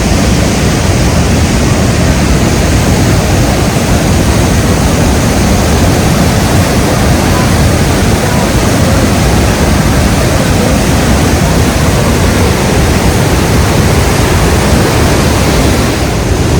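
Powerful waterfall: a loud, steady rush of falling water, very powerful and almost as loud as Niagara Falls.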